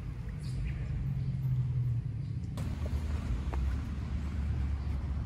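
A low, steady rumble, with an abrupt change in the background noise about two and a half seconds in.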